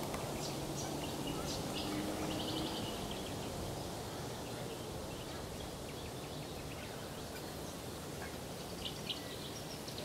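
Wandering whistling ducks giving short, high twittering whistles in quick runs, mostly in the first three seconds and again near the end, over a steady background hiss.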